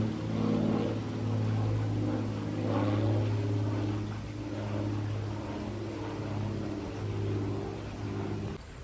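Small airplane flying overhead: a steady, low engine drone with a slow wavering beat. It cuts off abruptly near the end.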